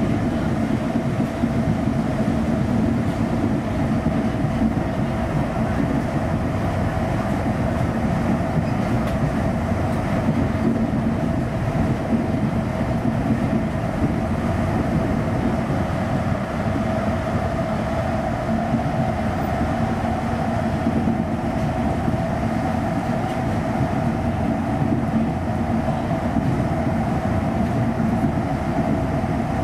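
Driverless two-car rubber-tyred airport people-mover train running steadily through a tunnel on its concrete guideway, heard from inside the car: even rolling noise with a steady motor hum and whine.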